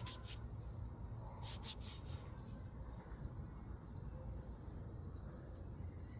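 Faint steady low hum with two short clusters of high-pitched clicks, one at the start and one about one and a half seconds in.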